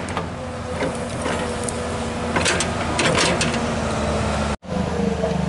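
Komatsu PC200 long-reach excavator's diesel engine running with a steady whine, while the bucket scrapes and knocks against the soil of the bank a few times. The sound drops out for an instant near the end.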